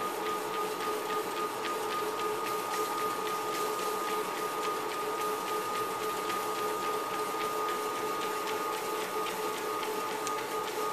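Life Fitness treadmill running with a steady motor whine on two tones, and a Chongqing dog's paws ticking quickly and lightly on the moving belt as it trots.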